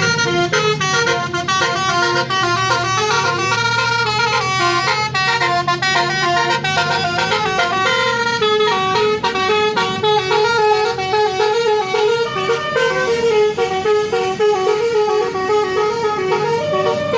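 A tour bus's basuri musical horn playing a fast melody, its loud notes stepping up and down in pitch without a break.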